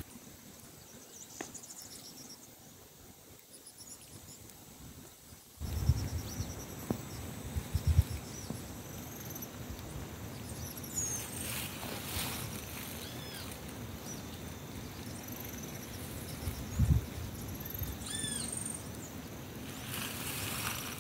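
Open countryside ambience: birds chirping and calling now and then over a steady high insect buzz. A few low thumps on the microphone come in from about six seconds in.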